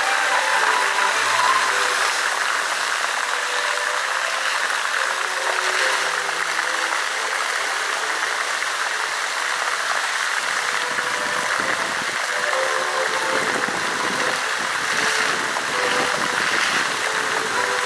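Musical dancing fountain's water jets spraying and splashing down into the pool: a steady rush of falling water.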